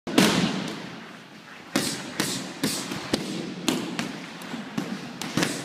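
Strikes smacking into Thai pads and mitts: one hard hit at the start, then a quick irregular run of sharp slaps from about two seconds in, each with a short echo from a large hall.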